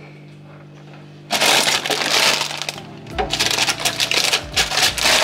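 A plastic bag of salad greens crinkling and crackling as it is pulled off a fridge shelf and handled. It starts suddenly about a second in, with a few low knocks later on.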